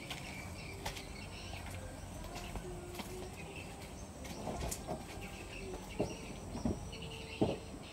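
Outdoor ambience with birds chirping in short scattered calls and a few faint taps.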